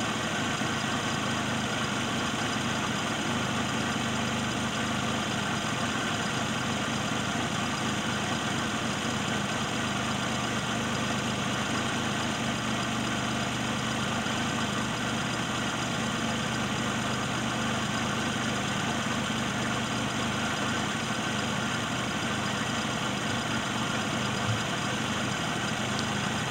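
Bored-and-stroked Suzuki G10 one-litre three-cylinder engine with a high-lift camshaft, idling steadily with the lope of its cam.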